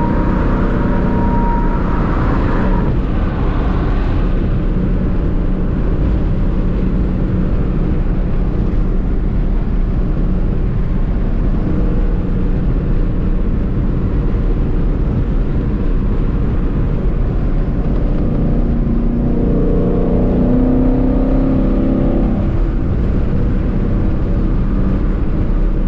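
Car engine and road noise heard from inside the cabin while cruising at highway speed, a steady drone, with the engine note climbing for a few seconds late on.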